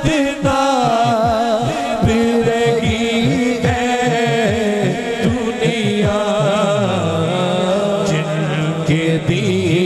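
Naat singing through a PA system: a solo voice holding long, wavering melismatic notes over a repeating low rhythmic backing.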